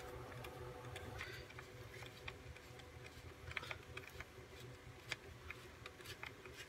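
Faint, irregular clicks and light scrapes of a hand screwdriver turning a screw through cut aluminium bottle sheet, over a low steady hum.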